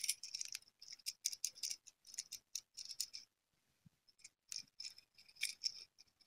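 Faint clicking and rattling of a Wittner light-alloy violin tailpiece handled in the fingers as its small adjustment screws are turned. The clicks come in quick clusters, stop for about a second a little past halfway, then resume.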